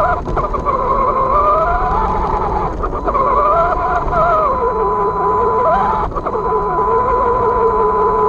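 Losi 22S SCT RC short-course truck's brushless electric motor whining, its pitch rising and falling with the throttle, over a low rumble from the wheels running on grass. A steady high tone runs under it.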